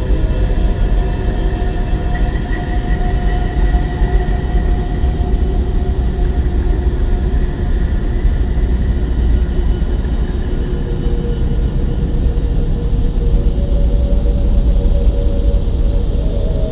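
Continuous deep rumbling drone with several held tones above it that slowly shift in pitch and swell and fade, presented as the eerie sound of the Earth in space.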